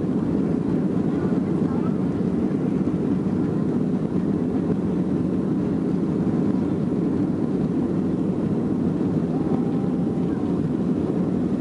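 Cabin noise of a Boeing 737-800 moving along the runway: its CFM56 turbofan engines and rolling gear make a steady, even low rumble that neither rises nor falls.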